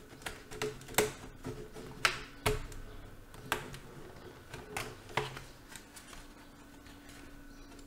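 Plastic snap clips of an HP Stream 11 laptop's case popping loose one after another as a plastic pry tool works along the seam: about eight sharp clicks in the first five seconds, then quieter.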